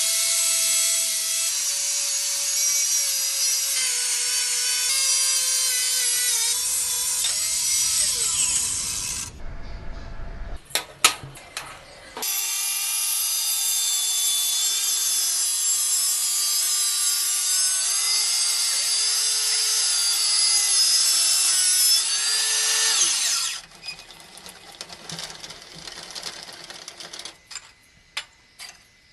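Handheld power cutter making two cuts, about nine and eleven seconds long, with a harsh hiss over the motor's tone, which sags under load and then winds down after each cut. A few clicks and knocks come between the cuts and after them.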